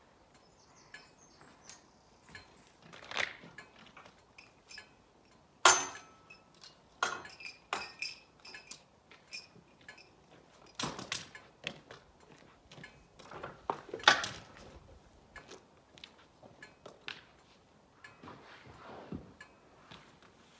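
Irregular metal clanks and clinks from a steel bale-carrier trailer's frame and fittings being handled as a round hay bale is loaded, with a few sharper, louder knocks scattered through.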